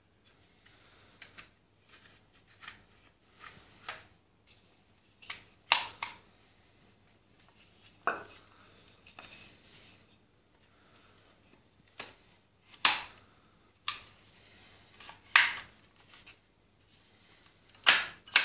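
Wooden replica guns being handled: a series of sharp wooden clacks and clicks, irregularly spaced, as the spring-loaded action of a wooden Tokarev SVT-40 replica is worked and a wooden drum magazine is fitted to a wooden PPSh-41 replica. The loudest clacks come in the second half.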